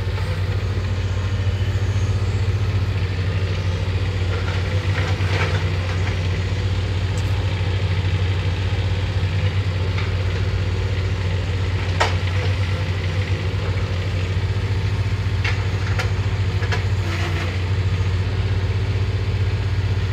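Steady diesel engine hum of the machinery at work, with the clatter of broken concrete rubble and a few sharp knocks as the Bobcat E20 mini excavator's bucket digs into it.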